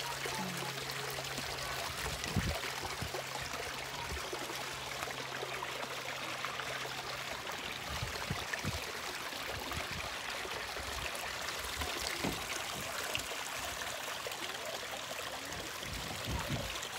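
A steady rushing hiss, with a low steady hum that stops about seven seconds in and a few soft low thumps scattered through.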